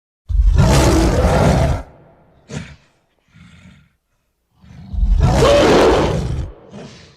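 Ceratosaurus roar sound effect: two long, low roars, each about a second and a half, with a brief growl and a faint grunt between them.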